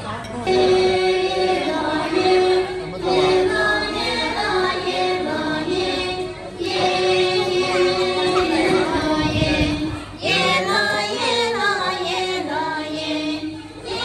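Group of women singing a Dong folk song together in long held notes, with two short breaks between phrases.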